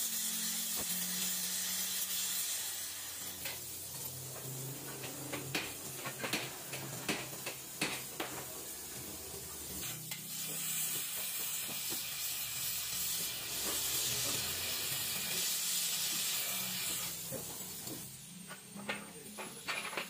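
Gas welding torch flame hissing steadily as aluminium filler rod is melted into an aluminium engine casting, with scattered sharp crackles. The hiss grows stronger in the middle and falls away near the end, over a low steady hum.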